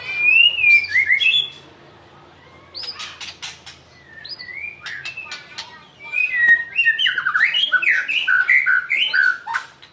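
White-rumped shama (murai batu) singing loud, fast, varied whistled phrases that glide up and down, mixed with sharp clicking notes, in three bursts with short pauses between. The bird is worked up, which the owner calls angry.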